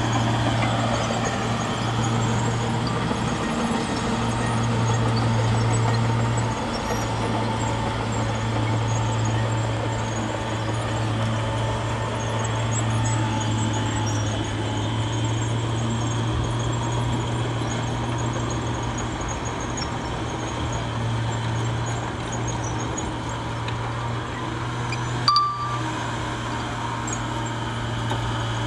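Bulldozer's diesel engine running with a steady low drone, its pitch holding level throughout. A single short, sharp click sounds near the end.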